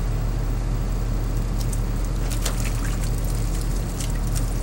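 Steady low engine drone of a directional drilling rig running through the pipe pull, with drilling fluid trickling and dribbling in the pit and a few small ticks of splashes.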